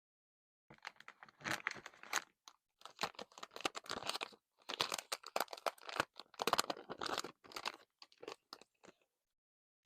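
Crinkly packaging of a blind-pack masking tape being handled and opened, a dense run of crackles and crunches that starts a little under a second in and stops about a second before the end.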